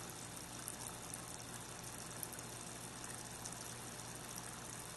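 Faint, steady bubbling of an air stone in a few inches of water, fed by a Cobalt Phantom ultrasonic air pump.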